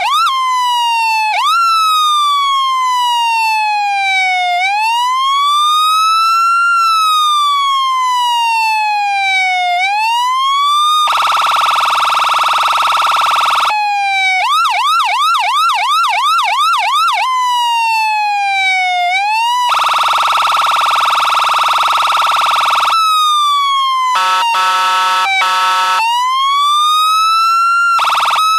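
Ambulance's electronic siren cycling through its tones: fast yelp sweeps, a slow rising-and-falling wail, and two long steady buzzing horn blasts. Near the end comes a short stretch of rapid pulsing tones.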